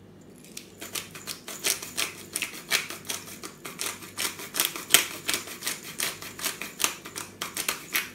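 Hand-twisted black pepper grinder grinding: a steady run of sharp clicks, about three or four a second, starting about half a second in.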